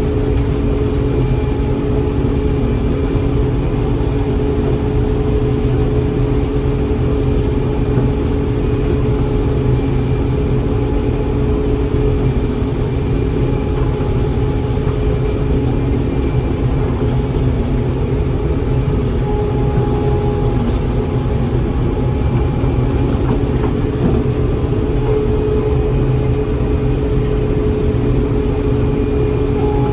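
John Deere 4400 combine running steadily: a constant engine drone with a steady hum and a faint whine over it.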